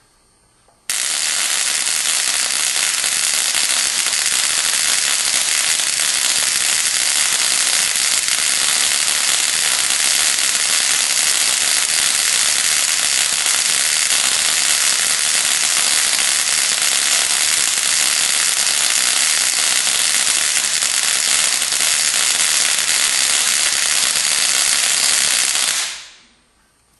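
Ruhmkorff induction coil discharging a continuous stream of high-voltage sparks across its spark gap, the sparks creeping over the surface of a glass plate between the brass electrodes. It makes a loud, steady hissing spark noise, mostly high-pitched, that starts suddenly about a second in and stops near the end.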